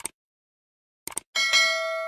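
Mouse-click sound effects, a quick double click at the start and another about a second in, followed by a bright notification-bell ding that rings on.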